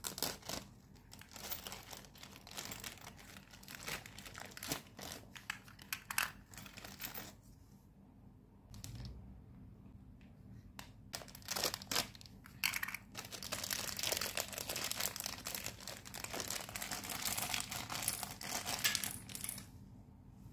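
Clear plastic packaging crinkling and tearing as it is cut open and unwrapped by hand, in short bursts at first, then a quieter pause with a soft thump, then a long stretch of dense crinkling that stops shortly before the end.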